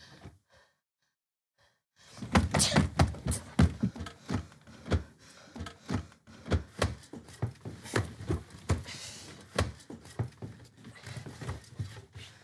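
A small wooden chest of drawers knocking and rattling with irregular thunks, several a second, as its drawer knobs are yanked at. The knocking starts abruptly about two seconds in, after a near-silent moment.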